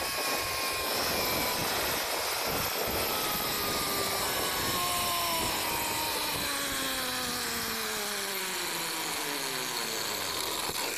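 Zip line trolley's pulley wheels whining along the steel cable, with a steady rush of wind. The whine falls steadily in pitch as the rider slows toward the landing platform.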